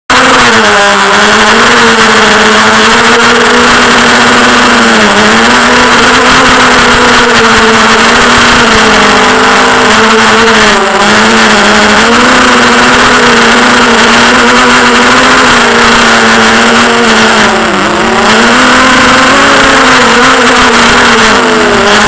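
Brushless motors and propellers of a ZMR racing quadcopter, picked up by its onboard camera: a loud, steady hum whose pitch wavers up and down constantly as the throttle changes in flight.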